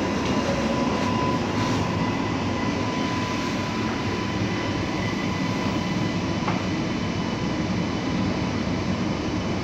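Metro train running, heard from inside the passenger car: a steady rumble with a faint, steady high whine and a brief click about six and a half seconds in.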